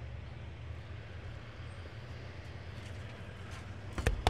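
Engine of the lift truck idling steadily with a low hum. Near the end, a quick run of loud, sharp knocks as the formed sign face is struck to seat it in its retainer.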